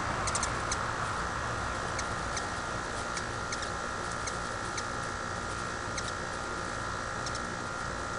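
A hummingbird's short, very high chip notes, sometimes two or three in quick succession near the start and then single ones every second or so, over a steady background hum with a constant high tone.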